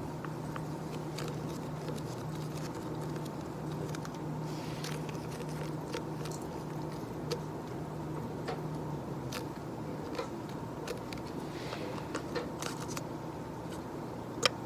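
Sparse, irregular soft clicks and taps close to the microphone, with one sharper click near the end, over a steady low office hum that drops away about nine seconds in.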